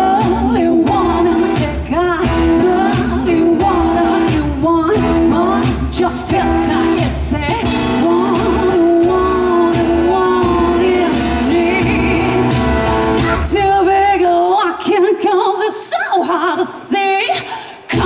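Live band playing a rock song: singing over acoustic and electric guitar, with a standing drummer on kick drum and snare. About fourteen seconds in the low drum and bass sounds drop away, and the loudness dips briefly just before the end.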